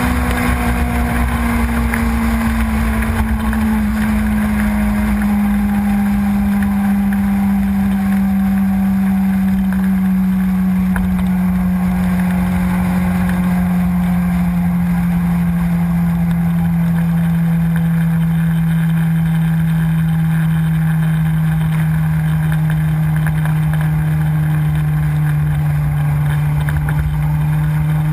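Suzuki sport bike's engine running at motorway speed under a low rush of wind. The engine note sinks steadily over the first several seconds as the revs drop, then holds nearly level, still easing slightly lower.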